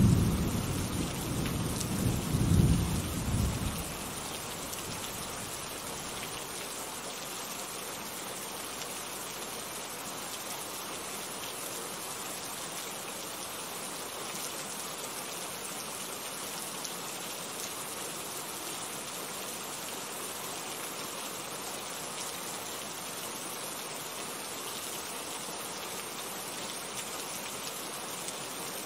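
Steady rain falling, with a roll of thunder in the first few seconds that swells twice and dies away about four seconds in, leaving the rain's even hiss.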